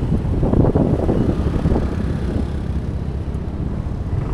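City street traffic rumbling, with wind buffeting the microphone and a few knocks mixed in.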